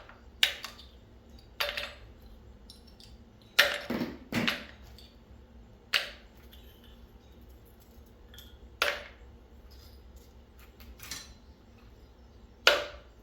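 Small pieces of scrap copper tossed one at a time into a bowl, each landing with a sharp clink. There are about eight clinks at uneven intervals, two or three of them close together about four seconds in.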